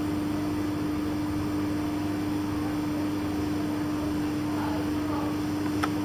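Steady hum holding one constant low-middle pitch over an even hiss, with a single short click near the end.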